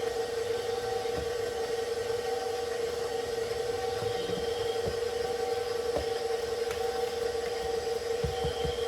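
Electric mixer motor running steadily with an even whine, with a few soft low knocks.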